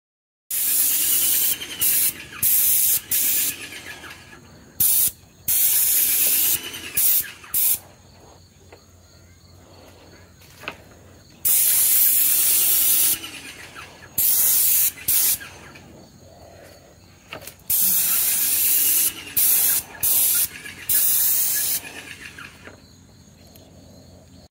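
InoKraft MaXpray M1 airless paint sprayer spraying paint in repeated loud bursts of hiss, each lasting one to a few seconds as the gun trigger is pulled and released, with short gaps between them.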